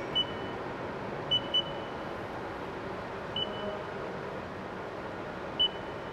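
Haas CNC control panel keys beeping as a program line is typed in: five short, high beeps at uneven gaps, two of them close together, over a steady background hum.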